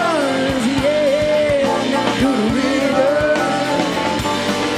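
Folk-rock band playing live: drum kit, bass and guitars keep a steady beat under a smoothly gliding lead melody.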